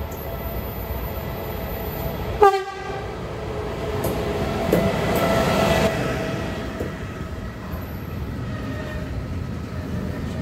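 Electric freight locomotive sounds one short horn blast about two and a half seconds in, then passes close by with a swelling rumble. After it, its intermodal wagons loaded with lorry semi-trailers roll past with a steady noise of wheels on rail.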